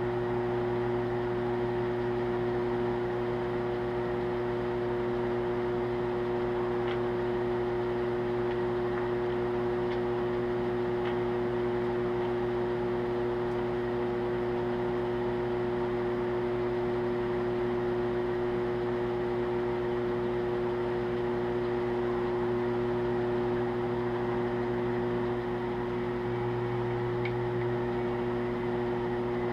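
Drill press motor running with a steady hum, with a few faint ticks from the machine being worked.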